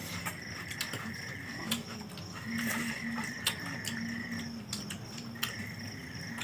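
Night insects trilling in stretches of a couple of seconds that stop and start again over a steady thin high tone. Scattered light clicks and clinks of hands and fingers on steel plates.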